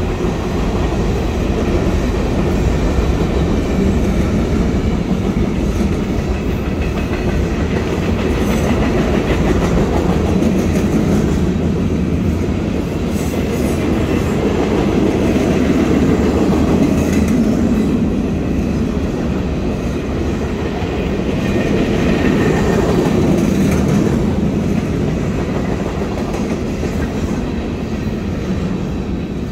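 Freight train rolling past close by, covered hopper cars and then intermodal well cars, with a steady rumble of steel wheels on the rails.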